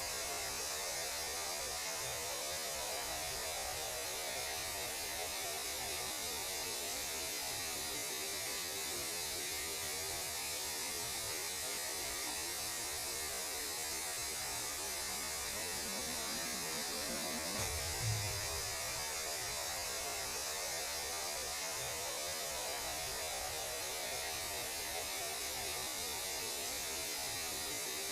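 Steady electronic noise presented as the sound of space radiation: an even static hiss over a low hum, unchanging throughout. A brief low thump about eighteen seconds in.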